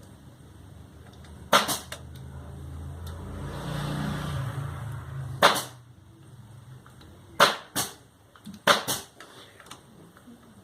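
Sharp clicks and knocks of tools and small metal parts being handled during reassembly of a sewing machine motor, in two pairs and a cluster of three near the end, with a low hum that swells and fades in the first half.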